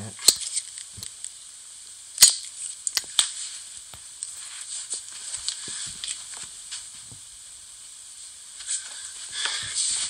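A few sharp metallic clicks from handling a wood-handled folding knife, the loudest about two seconds in, over a steady high hiss from a faulty recording.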